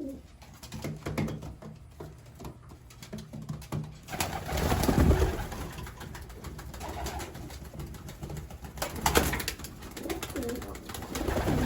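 Racing pigeons cooing in the loft, with a louder scuffling, rustling stretch about four seconds in and another brief burst about nine seconds in.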